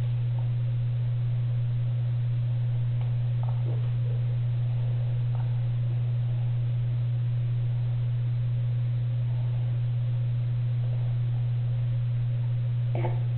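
A loud, steady low hum that does not change, with a few faint small knocks over it. Just before the end a brief, louder sound begins.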